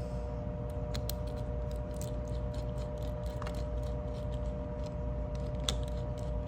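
Faint scattered clicks and light taps of small tools and knife parts being handled, over a steady background hum.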